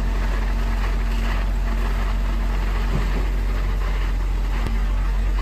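Engine of a truck-mounted concrete boom pump running, a steady low drone while concrete is pumped through the boom hose.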